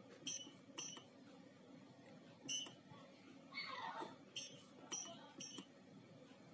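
Electronic key-press beeps from a prop bomb's membrane keypad as code digits are entered: six short high beeps, two near the start, one about two and a half seconds in, and three close together near the end. Between them, a brief falling sound.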